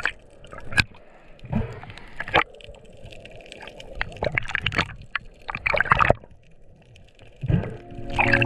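Underwater noise recorded through an action camera's waterproof housing: water gurgling and sloshing in several loud, irregular surges with sharp clicks and knocks, as a speared bluefin trevally is handled. Background music fades in near the end.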